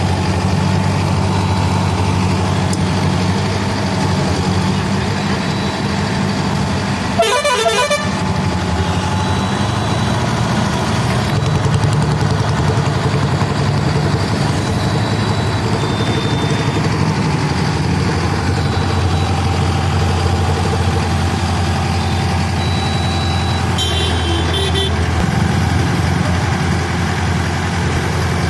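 Heavy diesel engine of a tractor-mounted water-well drilling rig running steadily under load, with a short warbling sound about seven seconds in and another brief one near the end.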